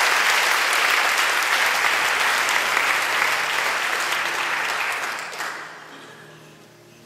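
Audience applauding a performer onto the stage, dense clapping that dies away about five and a half seconds in.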